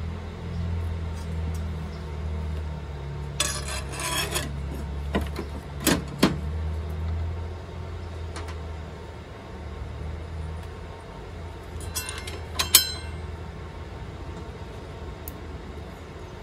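Metal clinks and rattles from a circular saw blade and its flange washer being handled during a table saw blade change: a rattle about three and a half seconds in, two sharp clicks about six seconds in, and a cluster of clinks near twelve seconds, the loudest of them. A steady low hum runs underneath.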